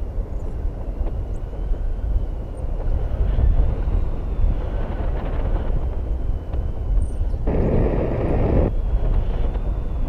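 Wind rushing over an action camera's microphone during a tandem paraglider flight: a steady low rumble, with a louder gust of rushing air lasting about a second, starting about three-quarters of the way in.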